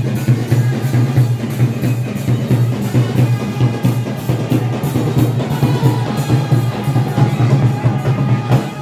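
Loud dance music with a steady drum-kit beat and heavy bass, cutting off abruptly near the end.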